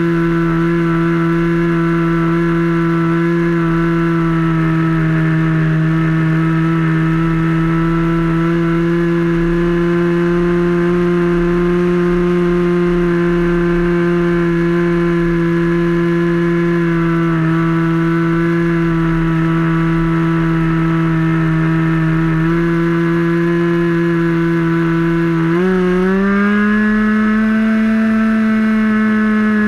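Model airplane engine of a Sig Kadet LT40 RC trainer running steadily, heard up close from a camera mounted on the plane. Near the end its pitch climbs and then holds higher.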